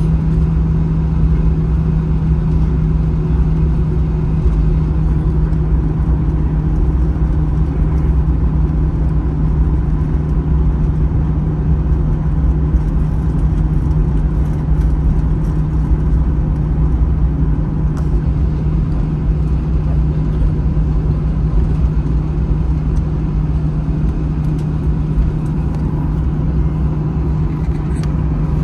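Steady cabin drone inside an Airbus A321 on the ground after landing: a low rumble with a constant low hum from the jet engines at idle.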